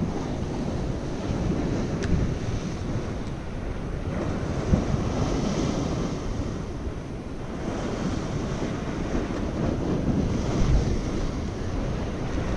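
Ocean swell breaking and washing against a rock ledge, the surf swelling louder and easing off in turn, with wind buffeting the microphone.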